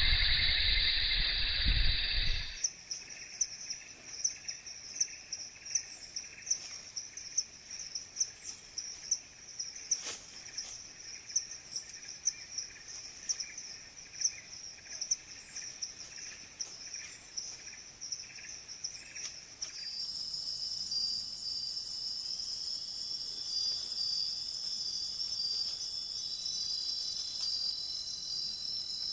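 Forest insects: a louder high buzz over a low rumble for the first couple of seconds, then high-pitched chirping about twice a second. About twenty seconds in this changes to a steady, high, continuous trill of night insects such as crickets.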